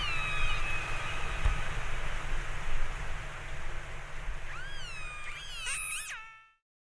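Killer whale calls: a high, harmonic-rich call gliding down and fading in the first second, then a cluster of rising-and-falling calls near the end, over a steady low rumble. The sound cuts off about six and a half seconds in.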